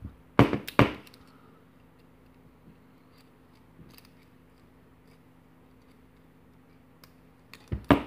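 A small screwdriver clicking and knocking against a metal padlock cylinder during disassembly: two sharp clicks just after the start, a few faint ticks, then a quick run of taps near the end as he starts knocking a ball out of the cylinder.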